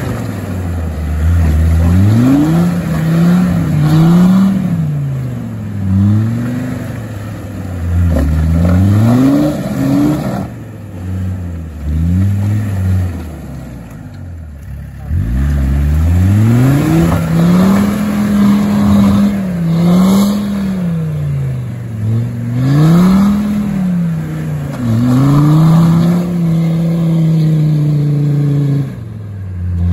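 Land Rover Defender engine revving up and down over and over as the 4x4 works its tyres through a muddy rut, each surge of revs rising and falling within a second or two. It eases off briefly about ten and fourteen seconds in.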